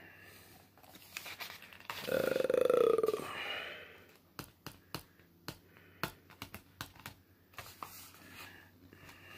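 A single loud, low voice sound from a person, lasting about a second and a half, comes about two seconds in. It is followed by a string of irregular light clicks and taps as a book from a Blu-ray collector's set is handled.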